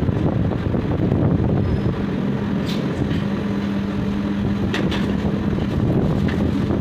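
Steady low rumble of a commercial kitchen's running equipment around a large dosa griddle, with a steady hum coming in about two seconds in and a few light clinks of steel utensils.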